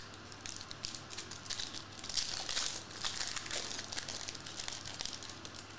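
A Topps Chrome trading-card pack's wrapper crinkling as it is peeled open by hand: a dense run of quick, irregular crackles.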